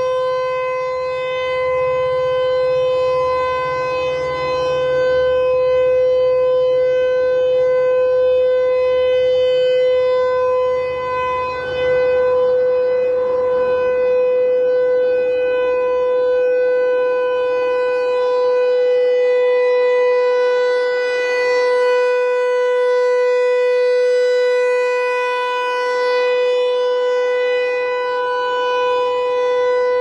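American Signal T-128 rotating outdoor warning siren sounding its Alert signal: one steady, unchanging tone. It swells and fades slightly in loudness as the horn turns toward and away from the listener.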